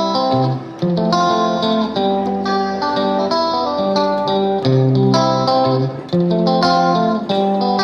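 Background music: a plucked guitar melody.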